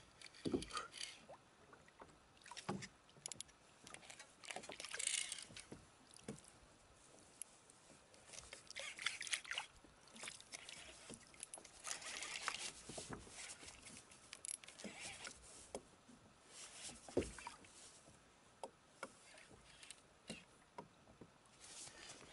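Quiet sea sounds around a kayak: faint water lapping and sloshing at the hull, with scattered light clicks and knocks and a few brief hissy swells.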